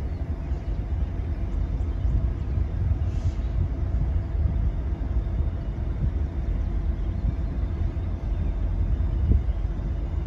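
Diesel locomotive leading an approaching freight train, its engine giving a steady low rumble with a faint hum.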